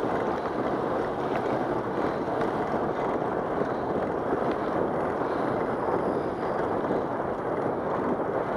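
Wind noise on the microphone of a camera moving along a path: a steady, even rushing.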